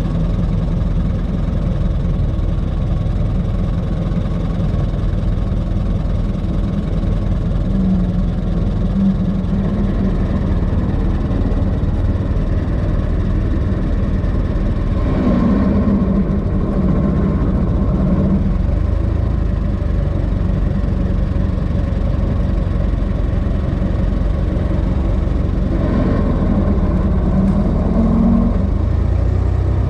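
1926 Ford Model T's four-cylinder side-valve engine running steadily as the car drives slowly along. The engine sound grows stronger twice, about halfway through and again near the end.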